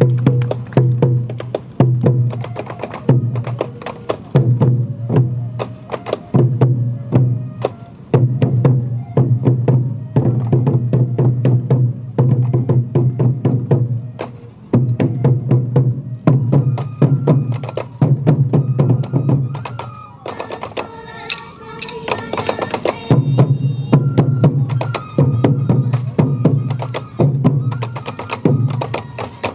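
Sansa odori festival music: taiko drums beaten in a steady repeating rhythm, with many sharp wooden clicks over the booming strokes. About twenty seconds in, the drums pause for a few seconds while a pitched melody sounds, then the drumming resumes.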